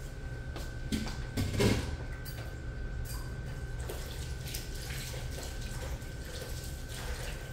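Cookware being handled: a few knocks and clinks about a second in, then scattered light clicks, over a steady low hum.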